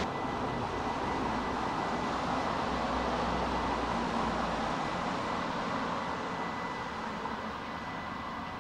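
Train noise at a railway station: a steady rushing rumble with a faint high whine running through it, slowly fading.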